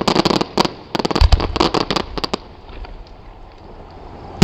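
Aerial fireworks bursting: a rapid run of crackling pops for the first two and a half seconds with a deep boom about a second in, then a quieter stretch before a loud shell burst right at the end.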